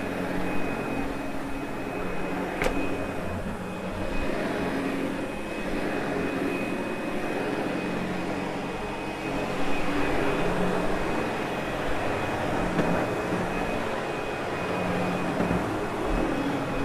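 Sebo X8 upright vacuum cleaner running steadily, a constant motor hum with a thin high whine, with a single sharp click about two and a half seconds in.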